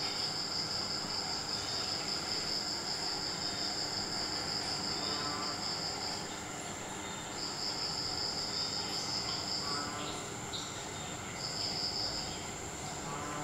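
Crickets trilling: a steady high trill that breaks off about six seconds in, starts again, stops near ten seconds and comes back briefly near the end, over a fainter unbroken high chirring.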